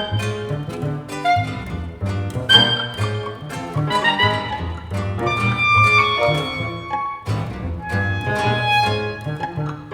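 Contemporary chamber ensemble of clarinet, violin, double bass, guitar and piano playing a busy passage: many short plucked and struck notes and held higher lines over repeated low double bass notes.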